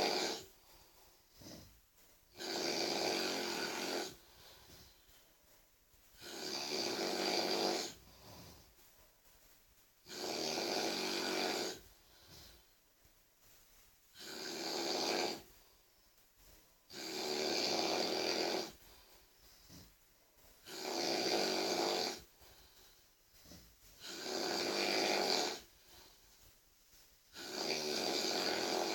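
A sleeping person snoring very loudly in a steady rhythm: a long snore of about a second and a half every three and a half to four seconds, with quiet breaths between.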